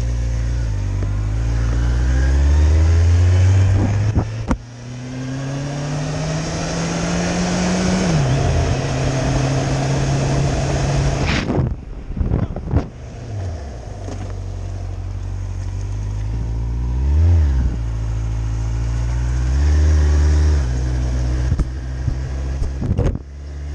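Motorcycle engine pulling away and climbing through the gears, with wind rushing over the microphone. About halfway through the wind noise drops away as the bike slows, and the engine runs lower with a few short throttle blips.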